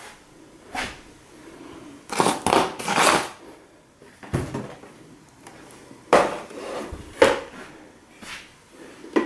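Wooden offcuts, blocks and a pine board being picked up and set down on cardboard, along with a plastic projector. The result is a series of irregular knocks and scrapes, with a busier cluster of them about two to three seconds in.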